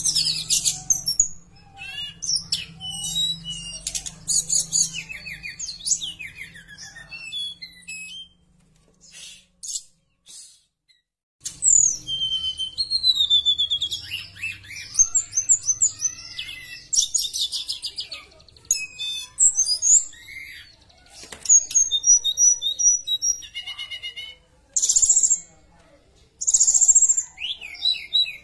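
Caged tledekan (hill blue flycatcher) singing a lively, varied song of high whistles, sliding notes and rapid chattering trills, with a pause of about three seconds about a third of the way in.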